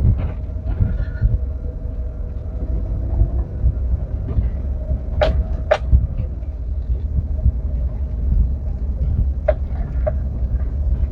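Vehicle driving, with a steady low rumble of engine and road noise. A few sharp knocks come midway and again near the end.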